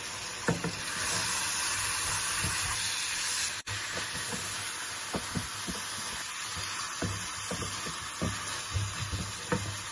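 Steaks, onions and sliced peppers sizzling in a non-stick frying pan, with a steady hiss of frying. A spatula stirs and turns the food, scraping and knocking against the pan in short irregular clicks.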